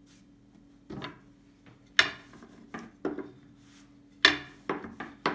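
Long thin wooden rolling pin knocking and rolling on a wooden table as dough is rolled out: a series of sharp wooden knocks, the loudest about two seconds in, over a low steady hum.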